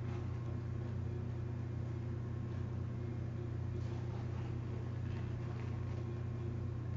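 A steady low hum, even in level throughout, with a few faint scratchy rustles in the second half as athletic tape is wrapped around the foot and heel for heel locks.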